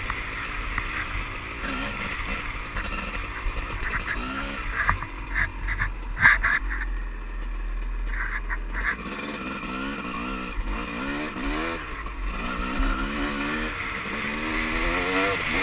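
Dirt bike engine running under the rider, its pitch repeatedly climbing and falling as the throttle is worked over a rough dirt trail. A cluster of sharp clacks and knocks comes about a third of the way in.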